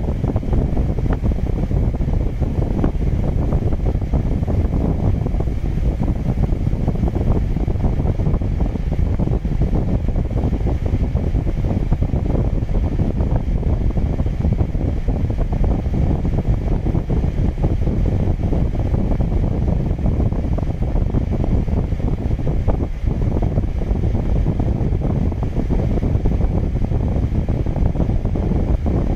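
Aero-Clean 850 portable HEPA air filtration unit's 500 cfm fan running steadily, a constant rush of air from its outlet.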